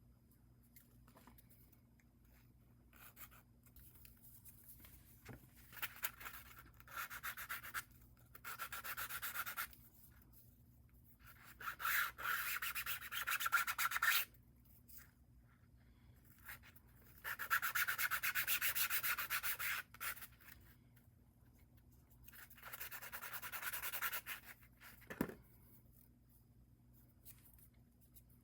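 Hand sanding of a small part in five short bouts of rapid back-and-forth strokes, each a few seconds long with pauses between, and a single light knock near the end.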